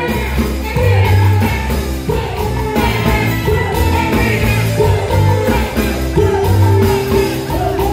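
Live band music with a man singing into a microphone over a steady drum beat and bass line.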